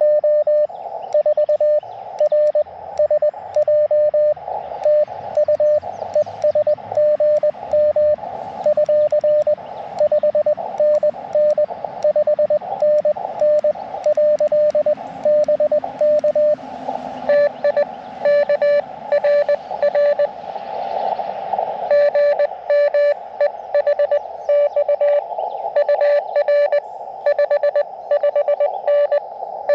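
Morse code (CW) through an Elecraft KX2 transceiver on 30 meters: a single tone of about 600 Hz keyed in quick dits and dahs over the narrow hiss of the receiver's CW filter. Roughly three quarters of the way in, the hiss drops out between characters and the tone keys clean.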